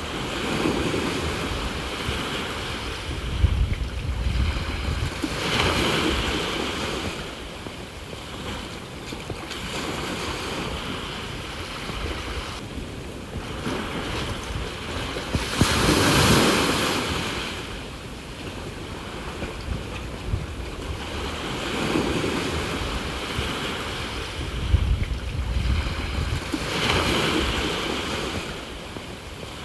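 Sea waves breaking and washing on the shore in repeated surges every few seconds, the biggest about halfway through. Wind buffets the phone's microphone now and then with a low rumble.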